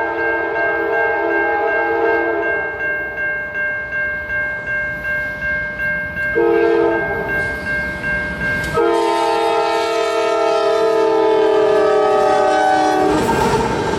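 Nathan K5LA five-chime locomotive air horn sounding its chord: a held note fading out, a short blast about six seconds in, then a long blast whose pitch sags slightly, the close of a grade-crossing signal. Near the end the horn stops and the rumble of the train rolling past rises.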